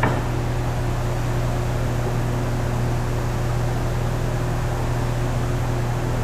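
Steady low machine hum with an even hiss over it, from running woodworking-factory machinery, with a single short knock at the very start.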